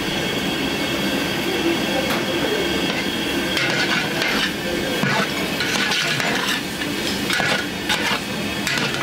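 Long metal paddle scraping and clinking against a large aluminium pot as minced meat is stirred, in several strokes from about three and a half seconds in, over a steady kitchen drone.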